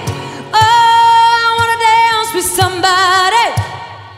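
Female pop vocalist belting a long, high held note with vibrato into a microphone, over an acoustic band of guitar, piano and cajon. About three and a half seconds in the note ends with a downward slide and the sound fades.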